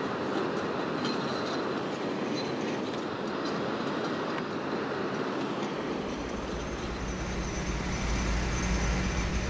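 Steady rush of river water over a weir, then, about six seconds in, a deep low rumble with a steady hum from heavy construction machinery comes in.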